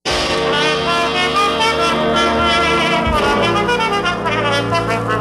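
Background music led by brass instruments, in a jazz style.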